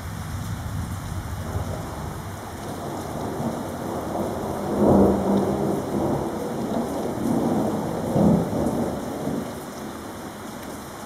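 Thunder rumbling during a heavy rainstorm, over the steady hiss of rain; the two loudest rolls of thunder come about halfway through and again about three seconds later.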